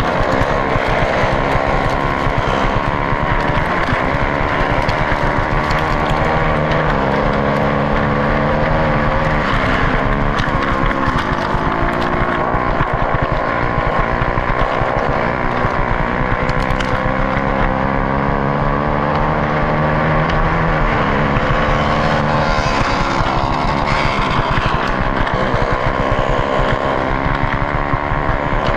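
Onboard sound of a KTM dirt bike's engine racing at wide-open throttle on ice, its note climbing and dropping again and again, with wind rushing over the helmet camera and other race bikes running close by.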